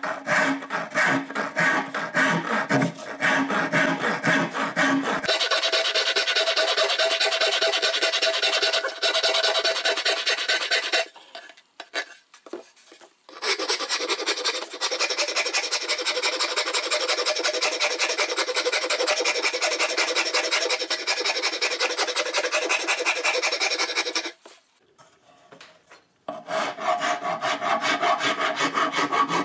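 A hand rasp rough-shaping a mahogany ukulele neck: rapid back-and-forth rasping strokes on the wood, stopping briefly twice.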